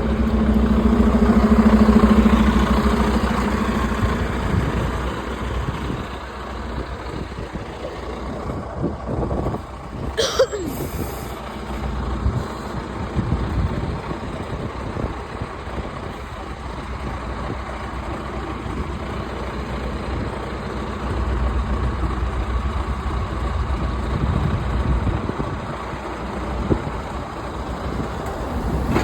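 Road traffic with a heavy vehicle, most likely a bus, running close by: its engine is loudest in the first few seconds, then fades into steady traffic noise. There is a short, high squeal about ten seconds in, and another vehicle comes by later on.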